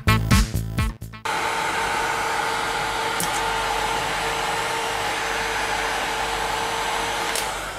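Electronic dance music cuts off about a second in. Then a Bosch heat gun blows steadily, an even rush of air with a faint steady hum, heating a motorcycle fork's outer tube around the oil seal to loosen the seal for removal.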